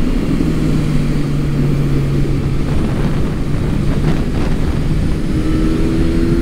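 Motorcycle engine running under way, with heavy wind rush on the microphone. The engine note holds steady, then rises in pitch about five seconds in.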